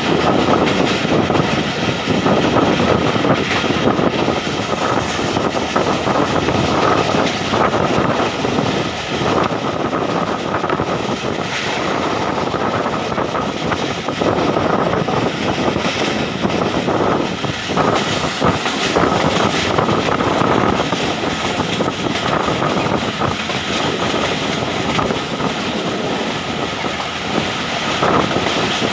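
Passenger train running along the track, heard from aboard: a steady loud rumble of wheels on rails mixed with rushing air, with a faint steady whine above it.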